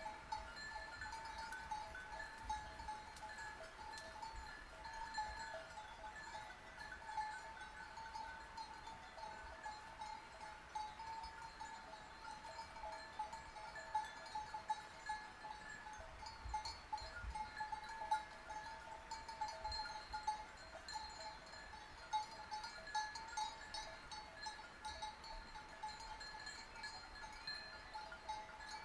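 Sheep bells clanking and ringing without a break, small peaks of jingling throughout, as from a flock of sheep wearing bells.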